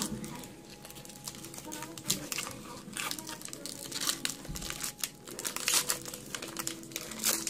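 Foil wrapper of a Pokémon trading-card booster pack crinkling and tearing as it is worked open by hand, an irregular run of sharp crackles.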